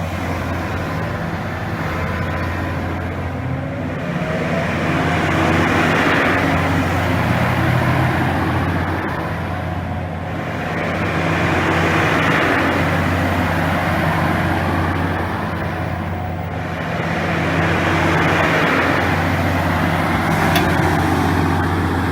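Hitachi ZX450LC excavator's diesel engine running steadily, swelling louder with a rush of hiss about every six seconds. The sound cuts off abruptly at the end.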